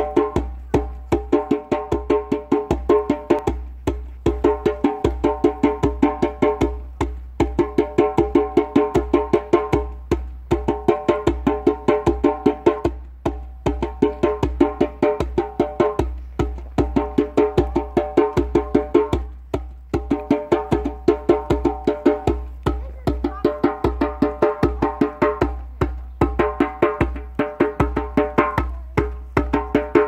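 A drum played by hand in a fast, even rhythm, each stroke ringing with a clear pitch. The strokes come in phrases of about three seconds, with a short pause between them.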